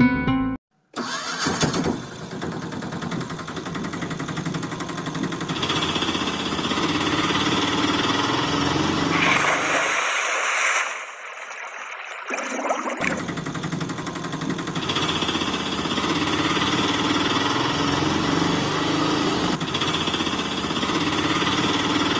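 Engine sound effect of a small motor vehicle. It cuts in about a second in and runs steady and rough. From about ten to thirteen seconds it gives way to a hiss with no low rumble, then comes back and runs on.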